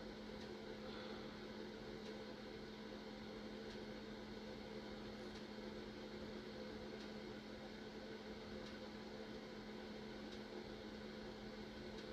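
A steady electrical hum with a constant low tone over faint hiss, and a faint tick about every second and a half.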